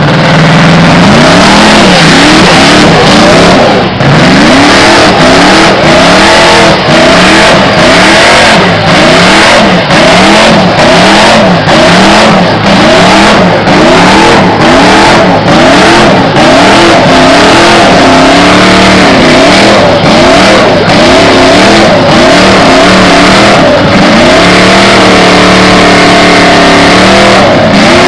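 BRM Type 30 grand prix car's supercharged 1.5-litre V16 running after a tow-start, revved up and down over and over, about once a second, and held at steadier revs for a few seconds twice in the second half. It is very loud.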